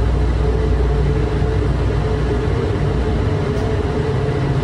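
Cabin sound of O'Hare's Airport Transit System people-mover train in motion: a steady low running rumble with a constant motor hum.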